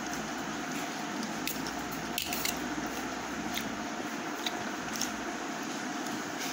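A fork clicking and scraping now and then against a metal plate of noodles, with wet chewing, over a steady background hiss. The clearest clicks come a little past two seconds in.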